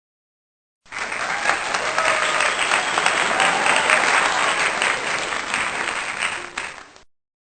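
Crowd applause, many hands clapping, starting suddenly about a second in and fading out near the end.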